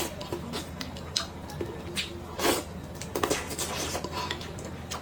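Eating utensils clicking and clinking against bowls and plates in scattered light taps, with a louder burst of sound about halfway through.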